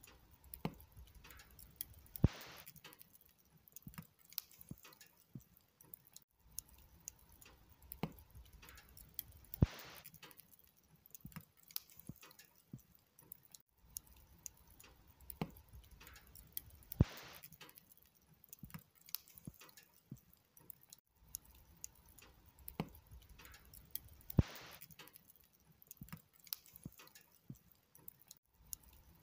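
Wood log fire crackling: constant small snaps and ticks from the burning logs and embers, with a louder pop about every seven seconds, over a faint low rush of flame.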